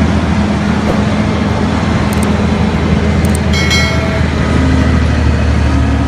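Caterpillar mining haul truck's large diesel engine running steadily as the loaded truck drives, a deep low hum with broad mechanical noise. A short high-pitched tone sounds briefly about three and a half seconds in.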